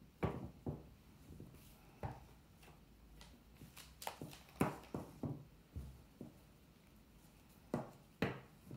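Willow rods tapping, knocking and rustling against each other and the table as a rod is woven around a willow heart frame. The taps come irregularly, bunched about four to five seconds in and again near the end.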